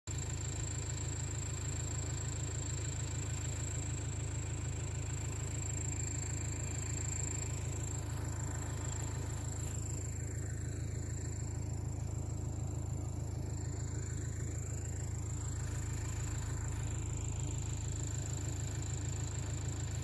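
Steady low engine rumble with a thin high whine, starting abruptly and holding an even level.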